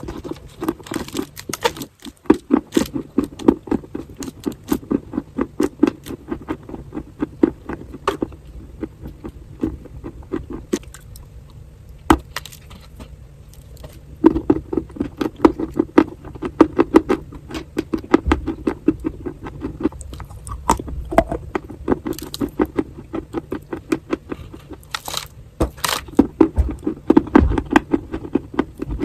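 Dry chalk being crushed and crumbled, a dense run of rapid crunches and crackles that eases off for a few seconds partway through and then picks up again.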